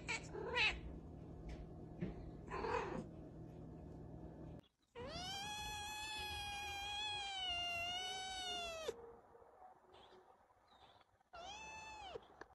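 Cats meowing. A tabby gives a couple of short meows at the start. A ginger kitten then gives one long drawn-out meow of about four seconds, followed by a shorter meow near the end.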